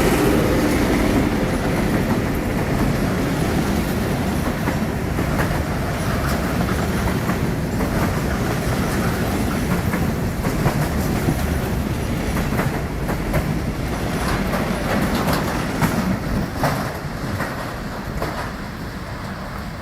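A train passing on the line, its wheels clicking and clattering over the rail joints under a steady rumble that eases off over the last few seconds.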